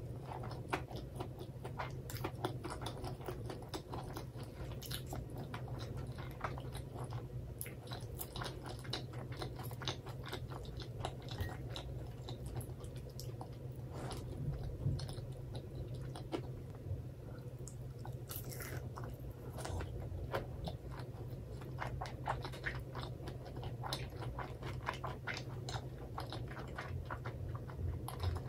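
Close-miked chewing of karaage (Japanese fried chicken) topped with mentaiko mayonnaise: bites and steady chewing full of small crunches and wet mouth clicks, over a low steady hum.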